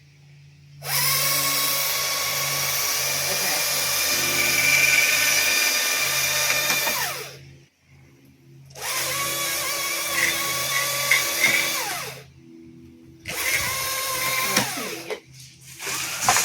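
Chainsaw revved to full speed in four bursts, a long one of about six seconds and then three shorter ones, its pitch falling each time the throttle is let off, idling low between bursts.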